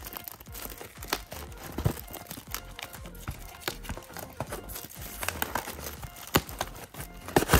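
A trading card blaster box being torn open by hand: its packaging crinkles and tears with many irregular sharp crackles and clicks, loudest near the end.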